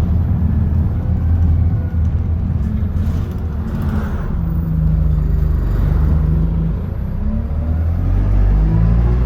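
Bus engine running with a steady low rumble, its pitch shifting up and down a few times as it pulls and changes speed.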